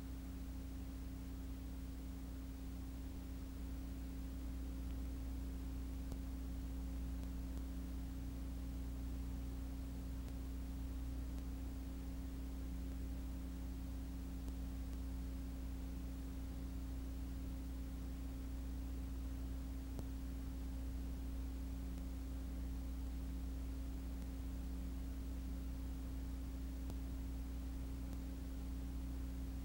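Steady low electrical hum made of a few constant tones over faint hiss, unchanging throughout; no kart engine is heard.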